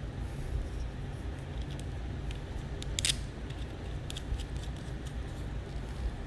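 Scattered small clicks and taps from handling a camera and its plastic packaging, the sharpest about three seconds in, over a steady low hum.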